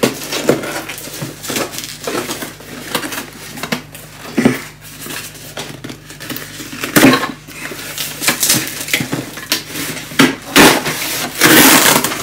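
Cardboard box being opened by hand: the flaps and cardboard liner scrape, crackle and knock in irregular bursts, the loudest of them in the second half.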